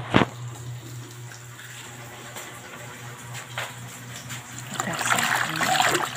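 A hand swishing Malabar spinach (alugbati) leaves in a basin of water, splashing louder from about five seconds in. There is a sharp click just after the start and a steady low hum underneath.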